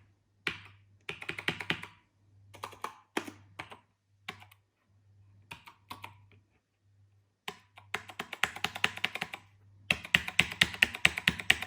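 Apple Adjustable Keyboard keys being pressed: clicks in short groups with pauses between, then fast, dense typing from about eight seconds in, loudest near the end. The keyboard is filthy and some of its keys are sticky.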